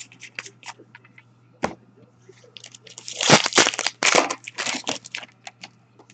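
Trading cards and packaging being handled: scattered light clicks and taps, then about two and a half seconds of loud crinkling, like a wrapper being crumpled, starting a little past halfway.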